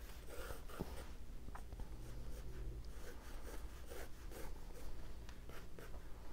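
A 2B graphite drawing pencil scratching faintly across sketchbook paper in long, light outline strokes, with a few soft ticks as the point lifts and touches down.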